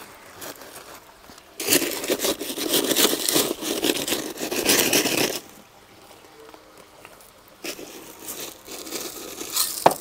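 Gravel in an aquaponics grow bed being dug and scraped aside by hand and with a small trowel to make planting holes for seedlings. It is a dense crunching scrape of stones from about one and a half seconds in to about five and a half. It pauses, then starts again for the last couple of seconds.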